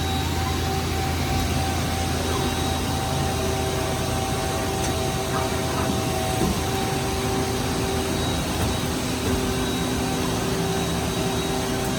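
Mazak dual-spindle CNC turning center running under power: a steady machine hum and whir with several constant tones and no sudden changes.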